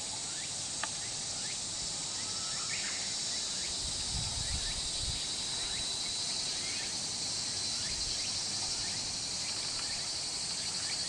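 A steady, high-pitched chorus of insects droning without a break, with a few faint short chirps over it.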